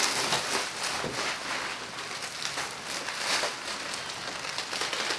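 Packing material crinkling and rustling as it is handled, a steady run of small crackles.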